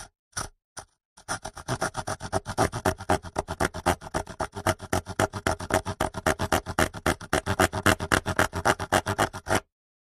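Small toy saw blade rasping back and forth on a thin dry twig in fast, even strokes, about seven a second. It starts about a second in and stops abruptly near the end.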